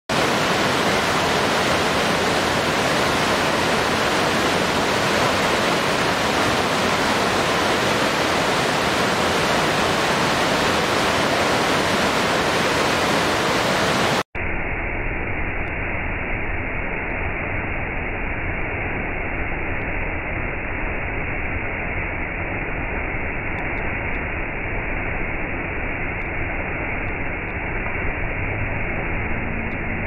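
Waterfall noise: the steady rush of a large waterfall, which cuts off abruptly about halfway through and gives way to the duller, steady rush of a small waterfall splashing down a rock face.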